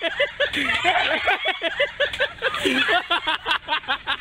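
Onlookers laughing and calling out, with rapid runs of short laughing syllables and a falling shout about two-thirds of the way through.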